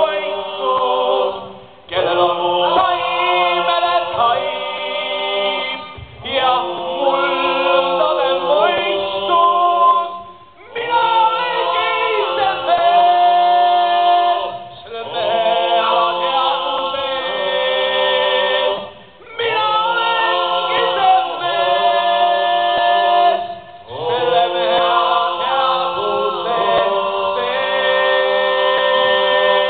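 A group of voices singing a cappella, with no instruments. They sing in held phrases of about four or five seconds, with a short break between each.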